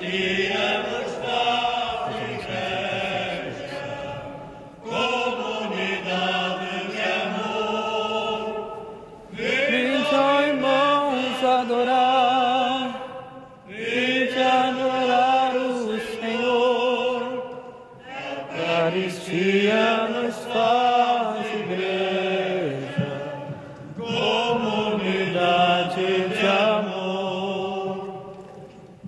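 Voices singing a slow church hymn, most likely a Communion hymn, in about six long sustained phrases with vibrato and short breaks for breath between them.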